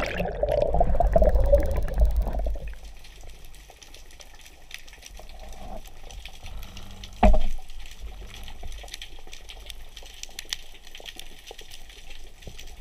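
Underwater rush of bubbles and churning water as a diver submerges, fading after about two seconds into a quiet underwater hiss with faint scattered clicks. A single sharp knock comes about seven seconds in.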